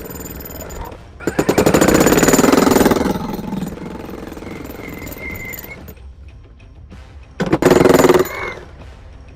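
Milwaukee MX FUEL battery-powered demolition breaker hammering concrete in two bursts of rapid blows: a longer run about a second in and a shorter one near the end.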